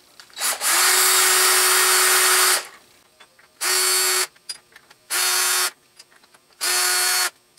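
Cordless DeWalt drill-driver spinning out four already-loosened cap screws one after another. The first run lasts about two seconds, then come three short runs of well under a second each, every run a steady, even motor whine.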